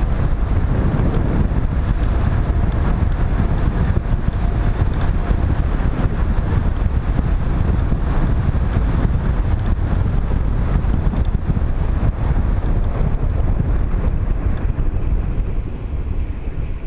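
Wind rushing over the microphone of a bicycle-mounted camera as the bike coasts downhill at speed, a loud steady low rumble that eases a little near the end as the bike slows.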